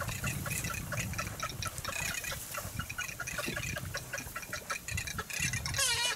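Small waves lapping and splashing against the reeds at the water's edge, with low wind rumble on the microphone. Near the end, a short whine falls steeply in pitch.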